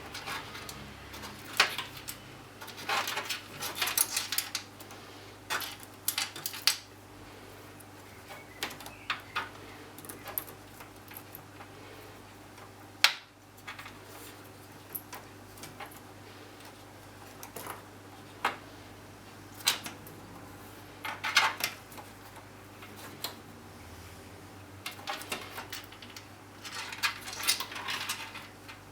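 Irregular clicks, taps and short scrapes of a motherboard being handled and fitted into a metal PC case, with one sharp click about halfway through.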